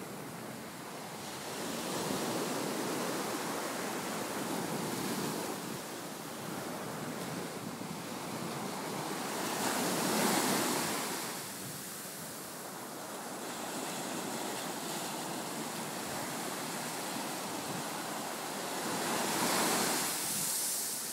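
Ocean surf washing onto the beach, swelling louder twice as waves break, with wind on the microphone.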